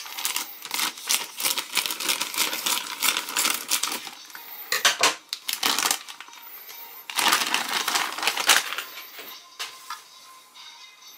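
Thin clear plastic toy bag crinkling and crackling as it is snipped open with scissors and handled: a long stretch of dense crackling, then shorter bursts in the middle, fading near the end.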